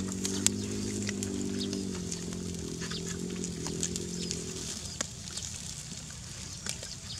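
A water buffalo lowing: one long, steady, deep call that ends about four and a half seconds in. Light crackling from the wood-fire embers runs underneath.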